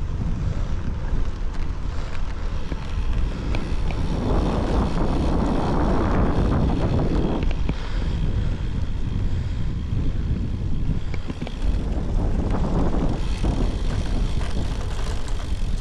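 Wind buffeting the action-camera microphone on a moving road bike, a steady low rumble that swells louder twice, about four seconds in and again later on.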